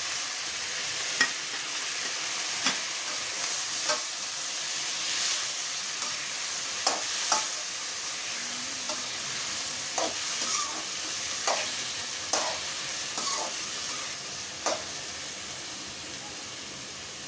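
Chopped onions and tomatoes sizzling in a little oil in a metal kadhai, softening before being ground into gravy. A metal spoon stirring them scrapes and knocks against the pan about ten times, irregularly.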